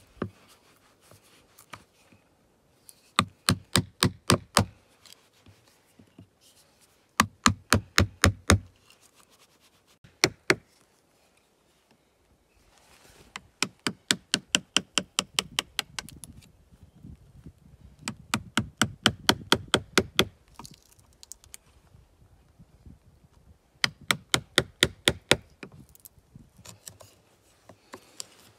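Wood chisel driven into a log by hammer blows, cutting a round socket: quick runs of sharp knocks, about five a second, with pauses and quieter scraping between runs.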